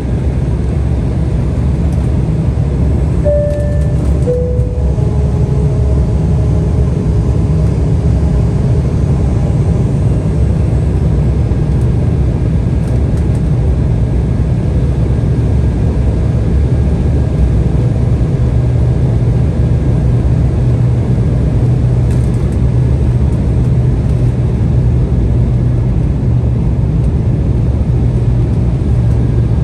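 Steady cabin drone of an Embraer 175 airliner in flight: a deep, even rumble of the GE CF34 turbofan engines and airflow around the fuselage, heard from a forward window seat. A two-note falling chime sounds about three to four seconds in.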